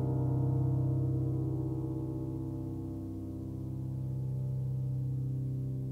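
Background music: a held, ringing low chord, the last sustain of a piano passage, that dips a little about three seconds in and swells again before fading.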